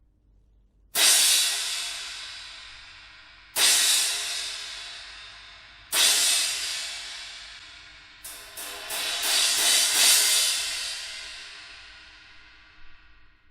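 A Kingdo cymbal is struck three times, a couple of seconds apart, and each crash rings out and slowly fades. Then a quick run of strokes swells into a bright wash that dies away.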